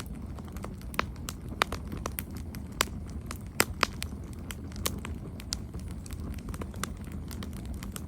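Campfire crackling: irregular sharp pops and snaps of burning wood over a steady low rumble of flames, with a few louder pops in the first half.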